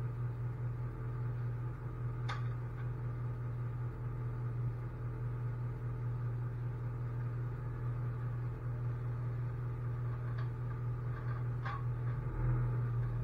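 Tow truck engine idling with a steady low hum, with a few light clicks over it, one about two seconds in and two near the end.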